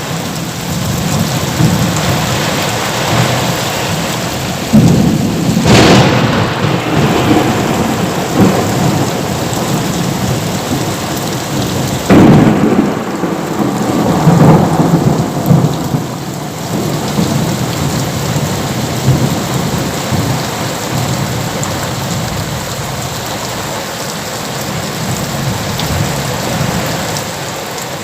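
Thunderstorm: steady heavy rain with two loud thunderclaps, one about five seconds in and one about twelve seconds in, each followed by a few seconds of rumbling.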